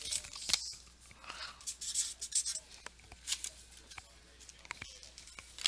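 Trading cards and their packaging being handled: scattered small clicks and short rustles.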